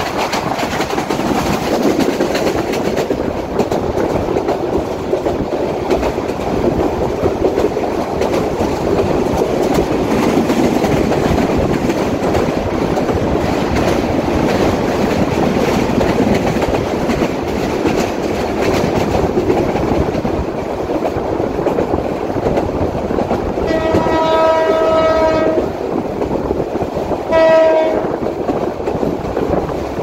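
A train running along the track with a steady rumble. Near the end its horn sounds for about two seconds, then once more briefly.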